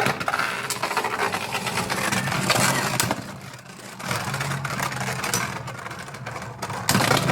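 Two Beyblade Burst Turbo spinning tops, Wonder Valtryek V4 and Z Achilles A4, launched into a plastic stadium and battling: a steady whirring with rapid rattling clicks as they collide and scrape. The sound dips about halfway through and then picks up again.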